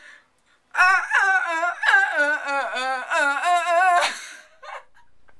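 A woman humming a tune without words, her pitch wavering and sliding, from about a second in until about four seconds in.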